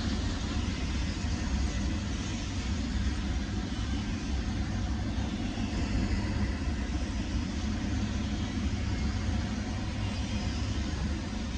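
Double-stack intermodal freight train's well cars rolling past: a steady rumble of steel wheels on the rails.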